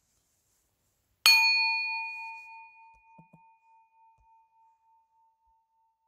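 Meditation bell struck once about a second in, ringing with a clear tone that wavers slowly as it fades over several seconds.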